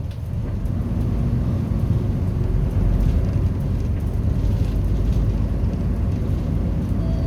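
Steady low rumble of a bus driving, heard from inside the cabin.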